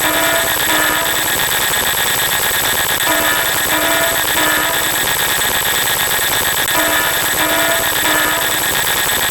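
Dense wall of layered synthetic sound effects: a constant hiss with two steady high tones under it. A short run of alarm-like beeping notes comes back about every three and a half seconds.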